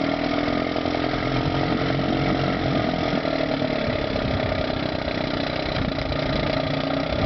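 1958 West Bend Muskie 8-horsepower two-stroke outboard motor running steadily just after being pull-started.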